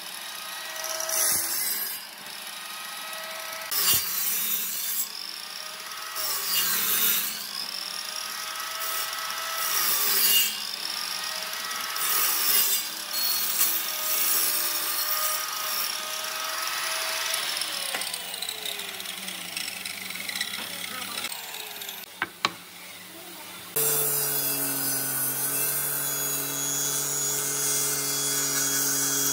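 Miter saw making repeated plunge cuts to cut a row of slots in a wooden board. The motor's pitch dips under each cut and recovers, about once every second and a half, and later falls as the blade spins down. A couple of sharp clicks follow, and about 24 seconds in there is a switch to a table saw motor running steadily.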